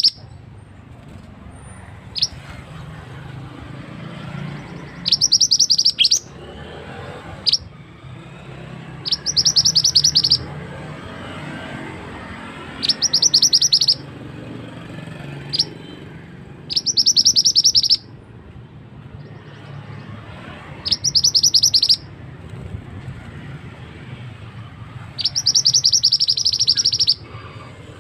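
Song of a male mandi darah (mantenan), the scarlet-headed flowerpecker, played as a bird lure: high, rapid trills about a second long, repeating about every four seconds, with single short high notes in between.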